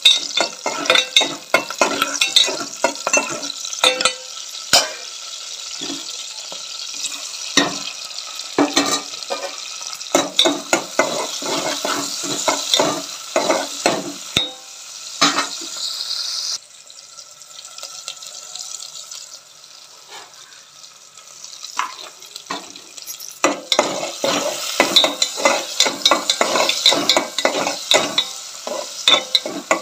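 Green chillies and tomato pieces sizzling in hot oil in an aluminium pot, with a metal spatula scraping and knocking against the pot as they are stirred. Past the middle the stirring stops for several seconds, leaving a quieter sizzle, then starts again.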